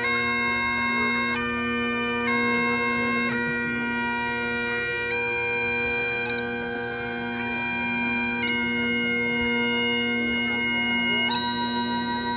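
Great Highland bagpipe playing a slow traditional tune: long-held melody notes step from one to the next every second or two over the steady, unbroken hum of the drones.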